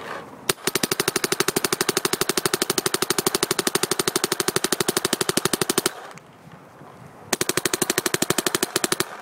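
Dye NT paintball marker firing rapidly. After a single shot about half a second in, it fires a long even string for about five seconds, pauses for over a second, then fires a shorter string that stops just before the end.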